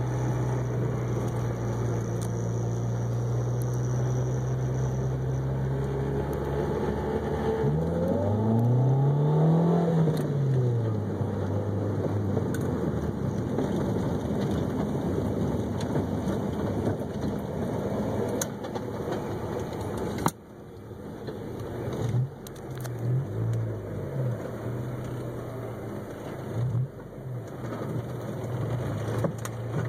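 Honda CR-X Si's D16A6 four-cylinder engine driving the car on the road, holding a steady note at first, then revving up and falling back once about eight to eleven seconds in. About twenty seconds in the sound drops suddenly, and after that the engine note rises and falls in short spurts.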